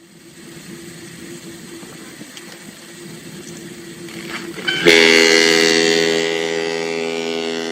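Ship's horn sounding one long, deep blast that starts abruptly about five seconds in, preceded by a low rumble that slowly grows louder.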